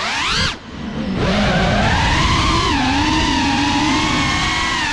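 GEPRC Cinelog35 FPV drone's brushless motors and propellers whining, heard from the onboard camera. The whine climbs in pitch, dips sharply about half a second in as the throttle drops, then comes back and holds steady with small rises and falls in pitch.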